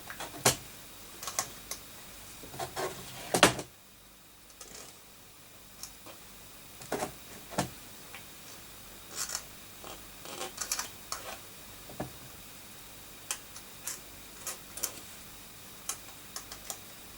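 Scattered light clicks and taps at irregular intervals, the loudest about three and a half seconds in: tools and parts knocking against the motherboard while capacitors are pulled off over a solder pot.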